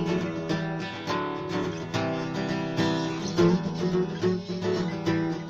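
Acoustic guitar strummed in an instrumental passage, without singing.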